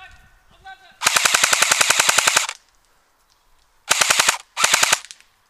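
Airsoft electric gun, a D-Boys KAC PDW, firing full-auto: a rapid string of mechanical clacks lasting about a second and a half, then two short bursts near the end.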